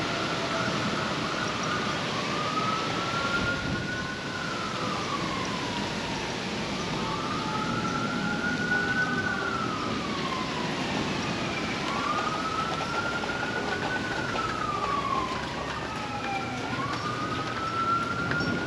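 Sirens wailing: several slow rises and falls in pitch, about one every four to five seconds, with a fainter second siren line beneath, over a steady hiss.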